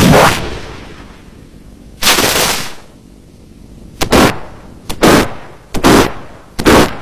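A series of loud, harsh bursts of noise, each sharp at the start and dying away within about half a second. The first fades out over the opening second, and the rest come about two seconds in and then more and more closely from four seconds on, some in quick pairs.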